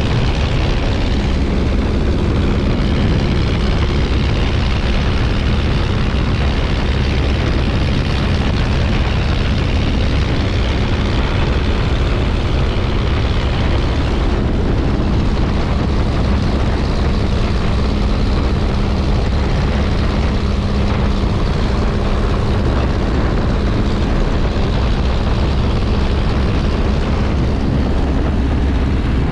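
Miles Magister's de Havilland Gipsy Major engine and propeller running steadily and loudly, with a constant hum.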